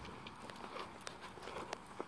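Hoofbeats of a mare and her foal being led at a brisk walk across a sand arena, heard as irregular soft clicks and thuds, mixed with the handler's footsteps.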